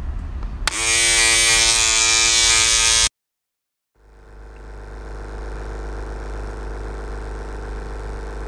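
Massage gun motor running: a loud, high-pitched whine with a rattle for about two seconds that cuts off suddenly. After a second of silence, the Lister T-Flex carbon-fibre massage gun's much quieter, lower hum builds up and holds steady.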